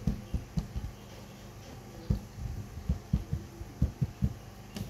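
Fingertips tapping and pressing on the face of an LCD TV panel: about a dozen soft, irregular thumps over a faint low hum.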